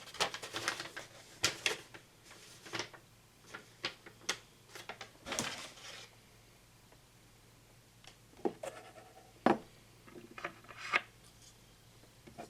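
Hands handling the DDC pump and its heatsink housing parts during assembly: scattered clicks, taps and rubbing of small plastic and metal pieces, with one sharp click about nine and a half seconds in.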